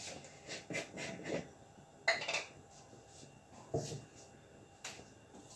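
Scattered light knocks and clinks of kitchen utensils and dishes being handled on the counter, the loudest about two seconds in with a brief ring, a duller knock near four seconds and a sharp click near five.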